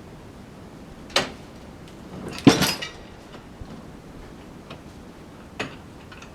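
Three separate wooden knocks and clunks of timber being shifted on a sawmill bed and its rollers, the loudest a short cluster about two and a half seconds in, over steady background noise.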